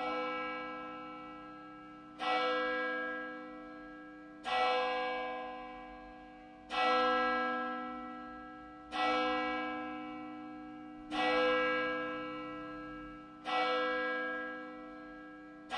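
A large bell tolling slowly, struck seven times at an even pace of about one stroke every two and a quarter seconds, each stroke ringing on and fading before the next.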